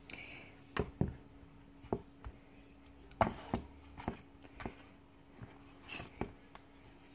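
Wooden spoon knocking and scraping against a cake mould while sticky pound-cake batter is spread in it: about a dozen irregular knocks with a few short scrapes, over a steady low hum.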